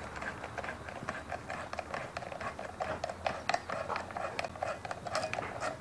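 Quick, irregular small metal clicks as a long steel rod is twisted and worked down through the hollow centre of a Kawasaki KX250 clutch, the rod ticking against the shaft and clutch hub as it goes.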